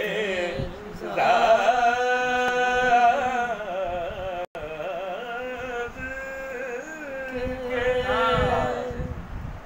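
A man singing unaccompanied, holding long drawn-out notes with wavering ornamented turns. There is a brief cut-out in the sound about halfway.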